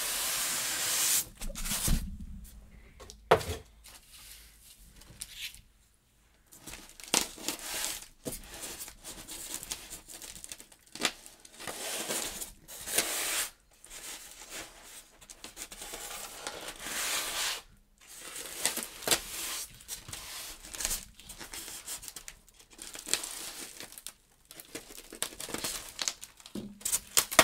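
Packaging being handled: a cardboard box opened, then polystyrene foam packing blocks rubbed and pulled apart, in irregular bursts of tearing and scraping.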